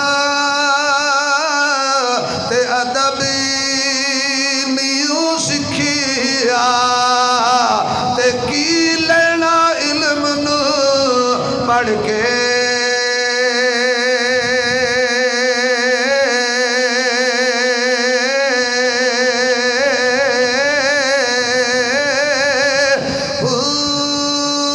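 A man singing Urdu rubaiyat (quatrains) in a melodic chant. The first half has ornamented, sliding phrases; from about halfway in he holds one long note with a steady vibrato.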